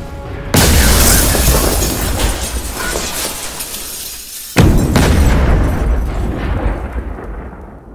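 Two explosion sound effects about four seconds apart, each a sudden loud blast that rumbles down over a few seconds; the second fades out near the end.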